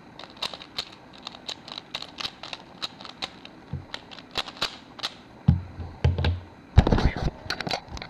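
3x3 Rubik's cube being turned quickly by hand, its plastic layers clicking and clacking in a rapid, irregular series. Near the end come a few louder knocks and thumps as the solve finishes.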